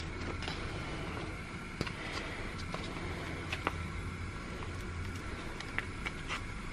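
Soft plastic mustard pouch crinkling, with scattered faint ticks, as it is squeezed out by hand, over a steady low hum.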